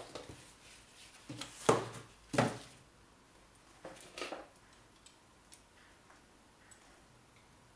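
Handling noises: an old leather case being shifted about inside a cardboard box, with two louder rustling knocks in the first three seconds and two more around four seconds in. A few faint clicks follow as a test probe and its cable are lifted out.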